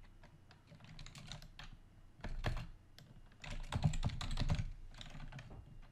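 Typing on a computer keyboard: irregular keystrokes in short runs, busiest a little past halfway.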